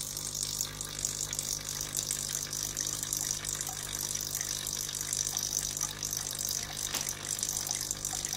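Coffee machine's electric water pump running unloaded with a steady low hum and hiss, pumping water out freely.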